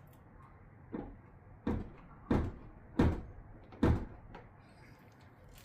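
Five dull thumps, a bit under a second apart, from hands knocking on the car's new tail light housing and surrounding panel while seating it flush.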